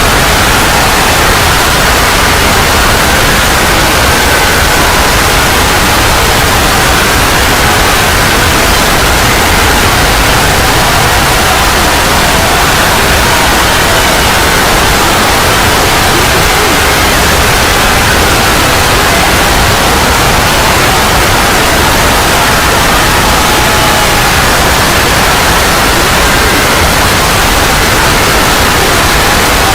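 Loud, steady static hiss covering the whole range, with faint wavering tones buried beneath it.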